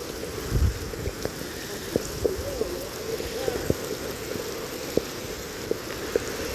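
Heavy rain falling steadily, with sharp drop hits every so often, and a brief faint wavering voice a couple of seconds in.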